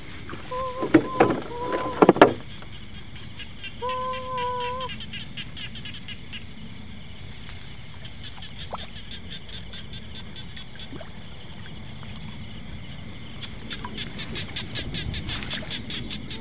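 A rapidly pulsing night-time chorus of small animals in a flooded rice field. Early on there are a few sharp knocks and several short steady calls, with one longer call about four seconds in. Near the end there is a little splashing in the shallow water.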